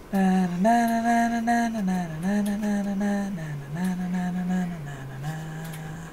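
A person humming a slow wordless tune, a series of held notes that step up and down in pitch and get quieter toward the end.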